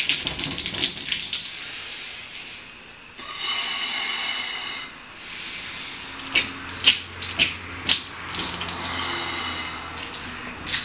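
A condom being inflated by mouth, the breath hissing in with a buzzing tone on some puffs, while bottle caps inside rattle and click against each other and the rubber. Several sharp clicks come between about six and eight seconds in.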